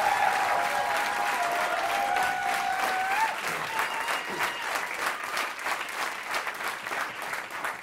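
Live audience applauding at the end of a song, with a few long drawn-out calls from the crowd over it during the first three seconds. The applause then thins out into scattered individual claps.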